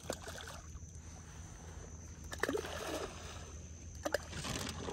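Shallow water sloshing around a person wading, with brief splashes about two and a half and four seconds in.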